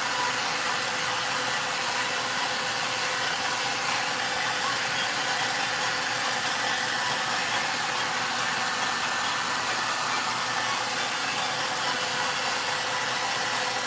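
VONE handheld hair dryer running steadily: a continuous rush of air with a faint steady whine.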